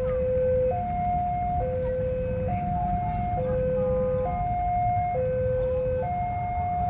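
Electronic railway level-crossing warning alarm sounding a steady two-tone hi-lo signal, each tone held just under a second, warning of an approaching train. A low rumble sits underneath.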